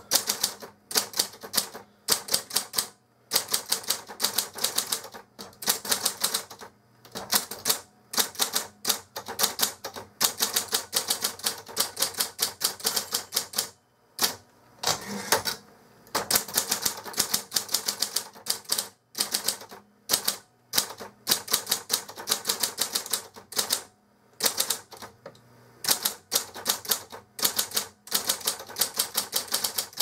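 1969 Royal Apollo 10 electric typewriter being typed on: quick runs of keystrokes clacking the typebars against the platen, broken by short pauses, with the motor barely audible beneath them.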